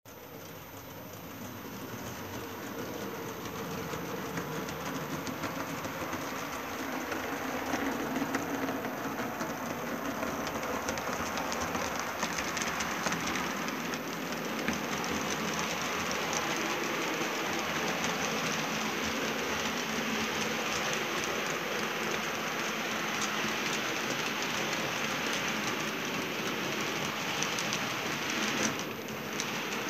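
HO-scale model ballast train, two model BB 66000 diesel locomotives hauling a long rake of hopper wagons, rolling along the layout track with a steady rattling hiss of wheels and motors. It grows louder over the first several seconds as the train comes nearer, then holds steady.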